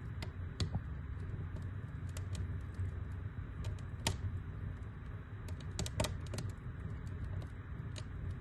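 Wood fire crackling in a fireplace: irregular sharp pops and snaps over a steady low rumble of the flames, with louder pops about half a second, four and six seconds in.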